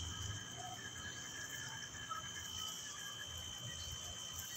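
Steady background insect chirring: one continuous high tone with a fainter hiss above it, unchanging throughout.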